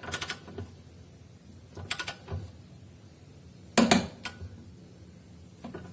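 Torque wrench ratcheting and clicking on a front suspension ball-joint nut being tightened to 50 newton metres: a few short metallic clicks and clacks, about two seconds apart.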